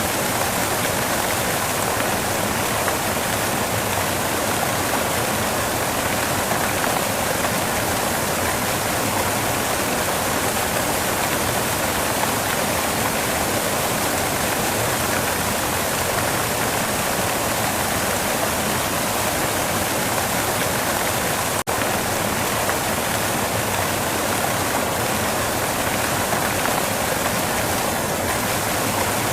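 Steady white noise, an even unbroken hiss with one momentary dropout a little over twenty seconds in.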